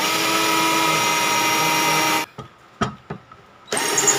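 Black & Decker GC1800 18-volt cordless drill in drill mode, running a wood bit into a block of lumber: a steady motor whine for about two seconds that holds its pitch, then stops. A couple of light knocks follow, and the drill spins up again near the end.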